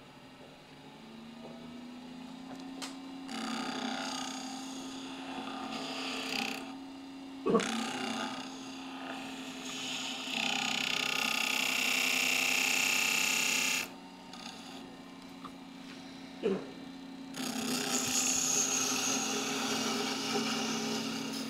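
Wood lathe spinning a small wooden snowman blank with a steady hum, while a gouge cuts the neck in several passes of scraping, hissing shaving noise; the longest and loudest cut comes about halfway through. Two short knocks fall between the cuts.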